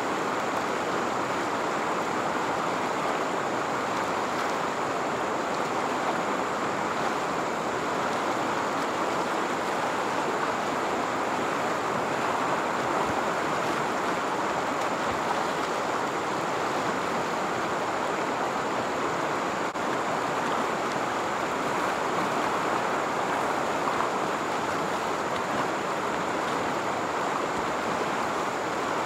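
Shallow river rapids rushing over rocks: a steady, even rush of moving water.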